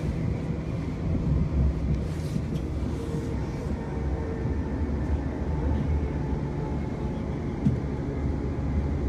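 Inside a London Northwestern Railway electric passenger train running at speed: a steady low rumble from the wheels on the track and the carriage, with one short sharp click about three-quarters of the way through.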